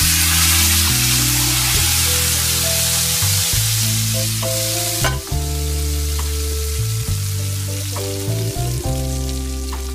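Hot oil tempering (baghar/tadka) of cumin seeds and dried red chillies sizzling as it is poured onto cooked dal. The sizzle is loud for about five seconds, then dies down to a softer sizzle. Background music plays underneath.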